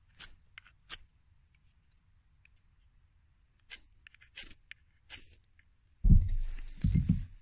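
About five sharp scrapes of a striker down a ferrocerium rod, throwing sparks onto a Vaseline-dipped cotton tinder packet, which catches. From about six seconds in, a loud low rumble takes over.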